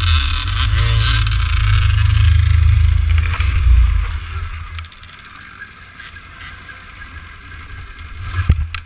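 Loud rumbling and scraping picked up by a helmet-mounted camera's microphone as the helmet is moved about. It quietens about five seconds in, with a couple of sharp knocks near the end.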